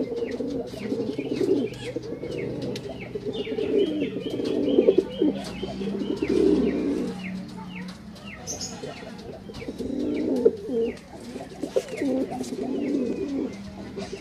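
Domestic pigeons cooing: a cock's low, repeated courtship coos toward a hen, breaking off for a moment around the middle and then resuming. Many short, high chirps sound over the cooing throughout.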